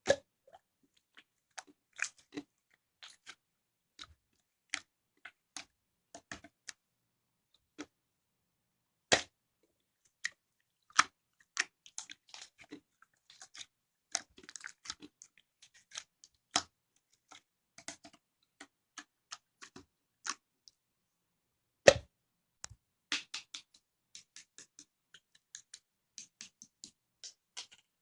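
Clear slime being pressed and stretched by hand, giving irregular sharp pops and clicks with short quiet gaps between them, a louder pop about 22 seconds in.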